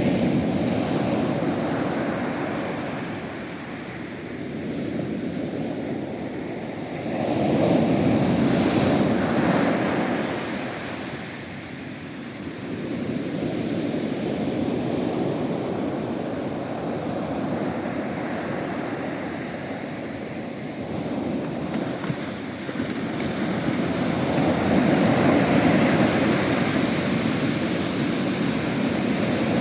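Sea waves breaking on the shore in a heavy westerly swell, a steady rush of surf that swells and eases as each set comes in, loudest about a quarter of the way in and again near the end.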